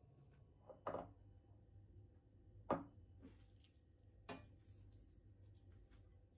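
Three short knocks of kitchenware set down on a stone counter, including a stainless steel plate, the middle knock the loudest, over a faint low hum.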